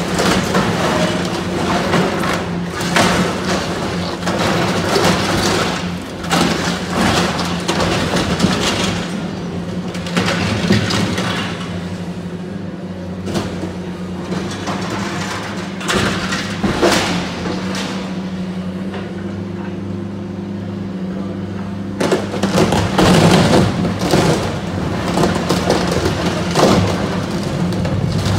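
Caterpillar hydraulic excavator's diesel engine running steadily under load while its demolition jaws crush and tear the aluminium fuselage of a jet airliner, with irregular metallic crunching, creaking and bangs. The crunching thins out for a stretch in the middle and comes back hard near the end.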